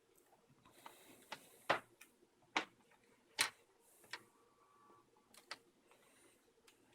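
Faint, scattered light clicks and taps, about a dozen at irregular intervals, a few of them sharper than the rest.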